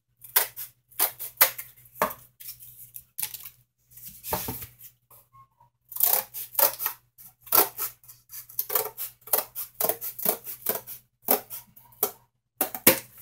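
Scissors cutting through corrugated cardboard: a run of crisp, irregular snips, about two to three a second, with a pause of a second or so twice near the middle.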